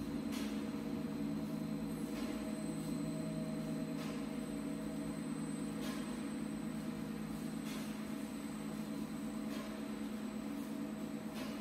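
BHFW-1500 double-column welding positioner's electric drive and gearbox running as the headstock slowly rotates the frame: a steady hum made of several low tones, with faint ticks every second or two.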